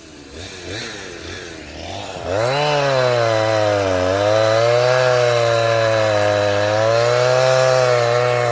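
Two-stroke chainsaw ticking over quietly, then revved to full throttle about two seconds in and held there while cutting firewood, its pitch sagging briefly as the chain bites into the log.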